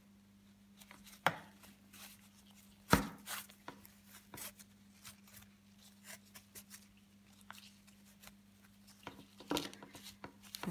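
Hands handling a plastic embroidery hoop and mesh canvas while stitching with satin ribbon: scattered light rustles and taps, with two sharper knocks about one and three seconds in, the second the loudest, and more taps near the end. A steady low electrical hum runs underneath.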